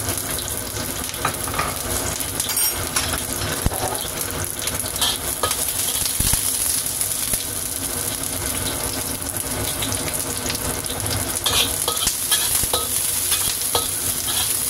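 Ginger, garlic and shallots sizzling steadily in hot oil in a wok. Scattered clicks and scrapes of a spatula stirring against the pan come more often near the end.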